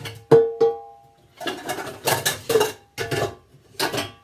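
Kitchen utensils and dishes clattering. Three sharp knocks with a short ringing tone come in the first second, then bursts of clatter follow.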